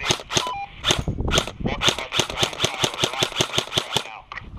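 Airsoft guns firing: scattered sharp pops, then a fast string of about seven shots a second from about two seconds in until near the end.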